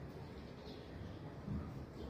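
Small aviary birds giving a few faint, short high chirps over a low background rumble that swells briefly about one and a half seconds in.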